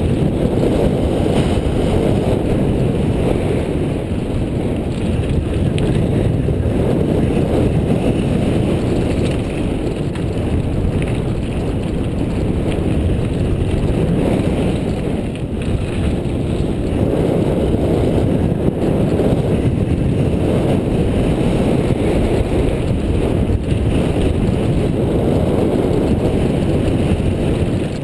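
Wind rushing over the microphone of a camera on a mountain bike riding a dirt trail, with tyres rolling over rocky ground and small clicks and rattles from the bike.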